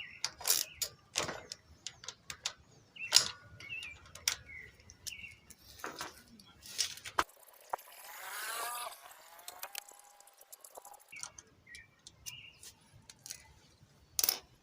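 Scattered metallic clicks and taps of a 9 mm wrench working the small bolts of a 110 cc motorcycle's camshaft sprocket loose. A brief warbling chirp sounds about halfway through.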